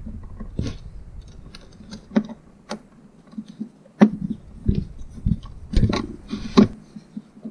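Irregular small clicks, taps and scrapes of a screwdriver and wire at a screw terminal on a bus bar in a plastic junction box as the terminal screw is tightened down on a wire, with a few sharper clicks, the loudest about four seconds in and two more near the end.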